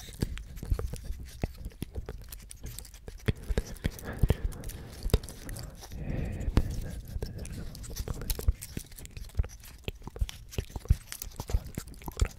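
Fingertips scratching and flicking the dry scales of a pine cone held close to the microphones: irregular, dry crackles and clicks.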